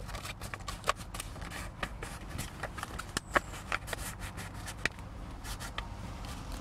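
Stiff clear-plastic sleeve of a sun-visor ID holder crinkling and crackling in many small irregular clicks as a registration card is worked into its tight back pocket.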